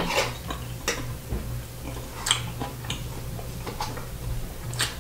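Metal fork clicking and scraping against a metal sheet pan as food is picked up: about five sharp clicks, irregularly spaced.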